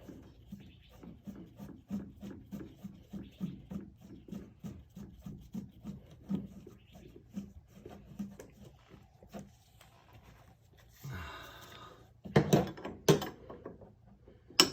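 Hand work on a car's front hydraulic accumulator in the wheel well: quick repeated rubbing or scraping strokes, about two to three a second, then a brief scuffle and three loud sharp knocks near the end.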